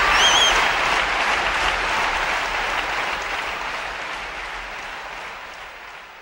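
Audience applauding, with one brief wavering high whistle near the start. The applause fades out steadily.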